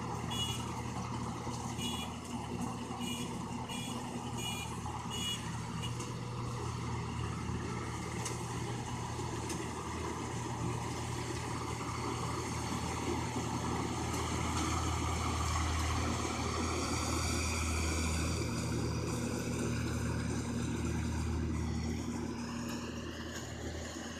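Rice combine harvester's engine running steadily, with a reversing alarm beeping over and over for the first five seconds or so. Near the end the engine speeds up and then drops back.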